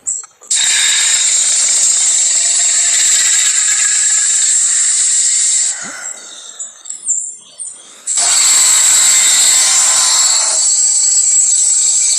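Two long hissing creature sound effects, each lasting several seconds. The second one starts about eight seconds in.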